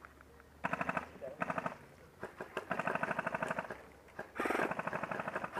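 Upgraded G&G Combat Machine M4 airsoft electric gun firing full-auto in four bursts: two short ones, a long one of nearly two seconds, then another that carries past the end, each a fast, even mechanical buzz of the gearbox cycling.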